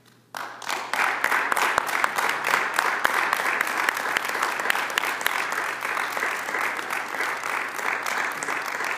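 Wedding guests clapping for the bride and groom's kiss. The applause starts suddenly a moment in and goes on steadily.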